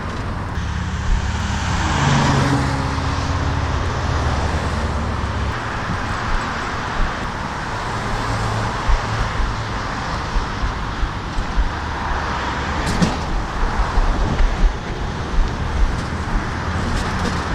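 Road traffic passing close by on a busy street: a nearby motor vehicle's engine drones low for the first five seconds or so, then steady tyre and road noise carries on. A few short light knocks come near the end.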